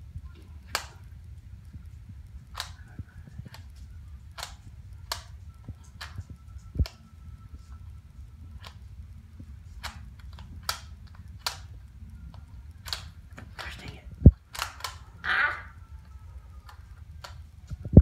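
Plastic Rubik's cube clicking as its layers are turned by bare toes on a tile floor: sharp, irregular clicks every second or so over a low steady hum, with one louder thump about fourteen seconds in.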